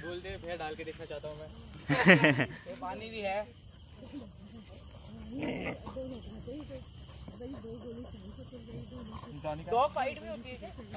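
Steady high-pitched insect chorus. Brief indistinct human voices come through about two seconds in and again near the end.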